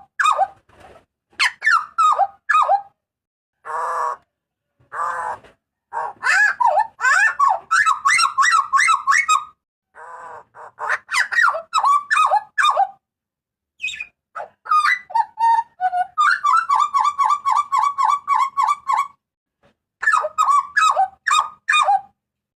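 Hooded butcherbird (burung jagal papua) calling loudly in bursts of sharp, ringing notes, mixed with a few harsh rasping calls. Past the middle comes a fast run of repeated notes, about five a second, for some three seconds.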